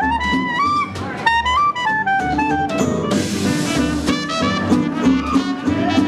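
Small swing jazz band playing live: clarinet and trumpet carry the melody over walking upright bass and drum kit, with a cymbal crash about three seconds in.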